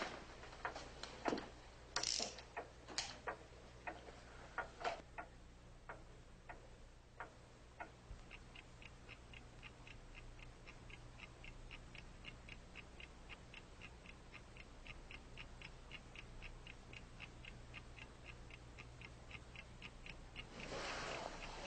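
A clock ticking steadily, about three ticks a second, starting about eight seconds in. Before that come scattered clicks and knocks.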